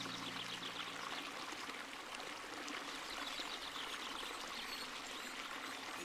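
Flowing water: a steady trickling, rushing stream. A soft sustained music pad fades out in the first second or so.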